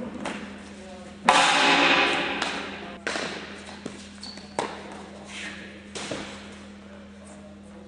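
Sharp knocks and thuds of baseball fielding practice on a concrete floor in a large echoing hall: the ball bouncing and smacking into a glove, and footsteps. The loudest is a hard knock about a second in that rings on for a second or so, over a steady low hum.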